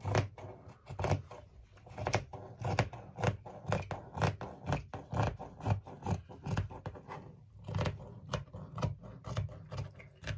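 Fabric scissors cutting through velvet, a steady run of snips about two a second.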